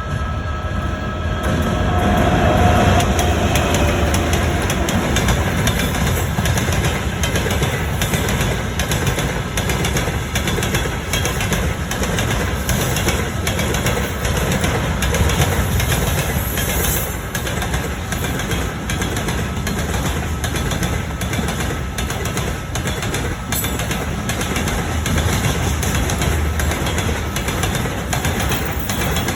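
A long train passing close by at a level crossing, its wagons rolling past with a steady heavy rumble and rapid clattering of wheels over the rails, continuing without a break.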